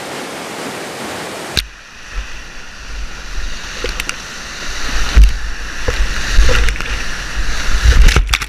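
Rushing whitewater of a river rapid in spring flood. About one and a half seconds in, the sound switches to a camera riding on a kayak through the rapids: heavy low buffeting with splashes and knocks of water hitting the boat and camera, growing louder toward the end.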